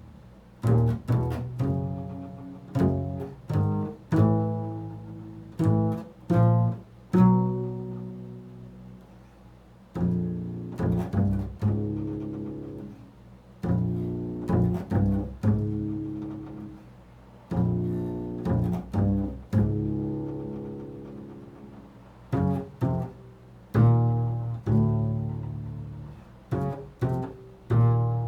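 Improvised plucked low-string notes, like a bass played pizzicato: single notes and quick runs of two or three, each struck sharply and left to ring and fade before the next group.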